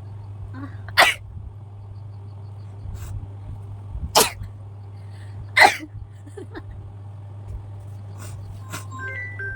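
A person sneezing three times, short sharp sneezes a few seconds apart, with a fainter one or two between. The sneezes are set off by sniffing a powder held to the nose.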